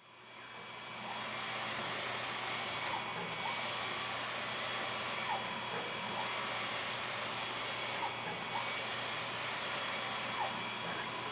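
PolyJet 3D printer running mid-build: a steady fan-like whoosh with a low hum and a faint high steady tone, fading in over the first second and dipping briefly every few seconds.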